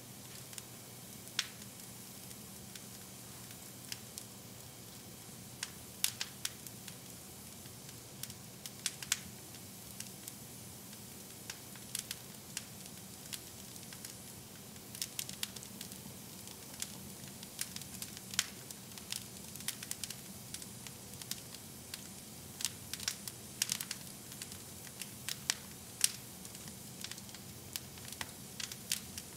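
Wood fire in a fireplace crackling: irregular sharp pops and snaps over a faint steady background, the pops coming more often in the second half.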